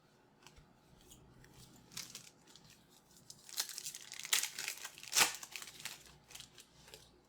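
A foil trading-card pack being torn open, its wrapper crinkling and crackling in a run of sharp rustles that are loudest around the middle.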